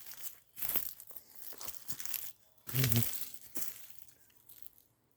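Dry leaves and brush crunching and rustling in irregular bursts as someone pushes on foot through thick undergrowth, with a short low grunt about three seconds in.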